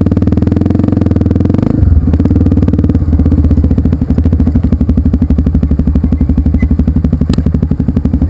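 A motorcycle engine running loudly with a steady firing rhythm; its pitch drops a little about two seconds in, as if the throttle eases off.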